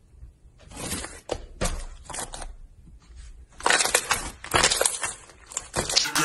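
Blue slime being squeezed and pressed by hand, giving bursts of crackling, popping squelches. The crackling comes in short bursts at first and grows louder and denser about halfway through.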